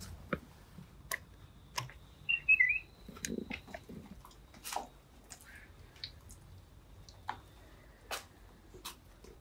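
Video doorbell chiming after its button is pressed: a quick run of a few high electronic notes about two and a half seconds in, with scattered light clicks around it.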